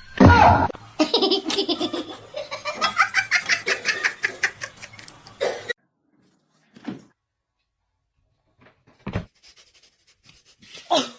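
A person laughing hard in a long run of rapid, repeated bursts that cuts off abruptly; a few short, scattered sounds follow in the quiet.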